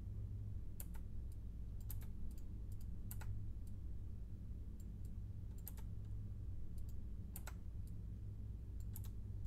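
Irregular clicks of a computer mouse and keyboard, about a dozen scattered through the stretch, over a steady low hum.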